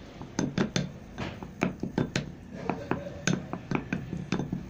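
Wooden spoon stirring a thick homemade cream in a cut-glass bowl, knocking against the glass in an uneven run of sharp clicks, about three to four a second.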